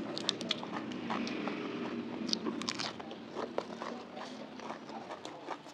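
Close-miked chewing and crunching of crisp raw vegetables and bamboo shoots, with irregular sharp snaps and mouth clicks. Under it is a low steady hum that stops about five seconds in.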